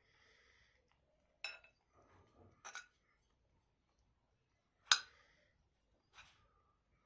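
Cutlery clinking against dishes during a meal: four short, sharp clinks with a brief ring, the loudest about five seconds in.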